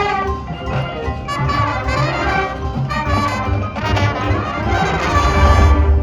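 Marching band brass playing sustained chords, with low bass notes growing louder near the end.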